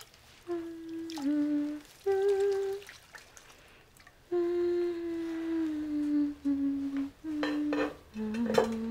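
A woman humming a slow, wordless tune in long held notes with short pauses between phrases. Near the end there are a few brief splashes of water in a bathtub.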